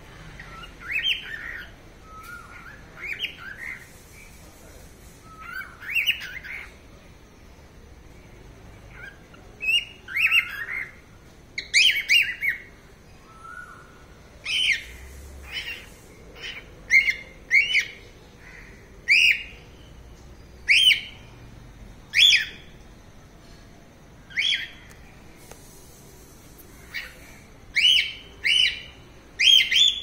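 Cockatiel whistling and chirping: short warbling phrases with pauses between them, then from about ten seconds in a run of sharp short chirps repeated roughly once a second.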